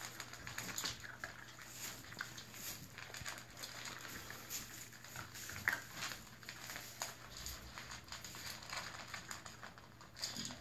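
Six-week-old Brittany puppies eating together from a metal bowl: a faint, busy patter of small clicks and crackles from chewing and lapping and paws shuffling in wood shavings, with one brief high squeak about halfway through.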